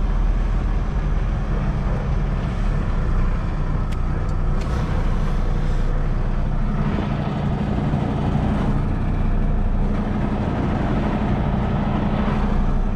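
Diesel engine of a 2023 Kenworth T680 semi truck running at low speed inside the cab while the truck is maneuvered into position. The engine note swells a little about seven seconds in and again near the end, and two faint clicks come about four seconds in.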